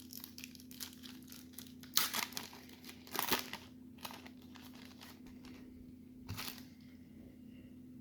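The wrapper of a 1991 Score Series 2 baseball card pack crinkling and tearing as it is ripped open by hand. It comes in a few short rustles, the loudest about two, three and six seconds in.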